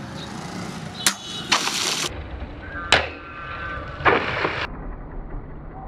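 A large Chinese dao blade, forged from a chainsaw bar, slashing through hanging plastic water bottles. Two sharp cuts about two seconds apart, each followed moments later by a short splash of water gushing out onto the ground.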